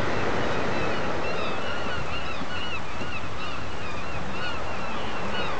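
Steady rush of sea surf breaking and washing on a shingle beach, with wind, and many short high bird chirps scattered over it, thickest from about a second in.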